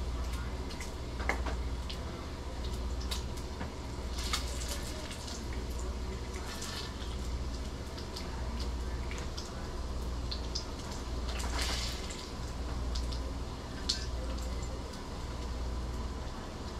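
Bacon sizzling in a frying pan, a steady hiss with scattered crackles and pops of spitting fat, over a low hum.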